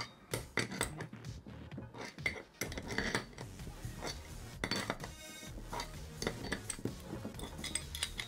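Adjustable spanner clinking and scraping on the brass bonnet nut of a gate valve as the nut is loosened anticlockwise and the spanner is shifted and refitted: an irregular string of short metallic clicks and knocks.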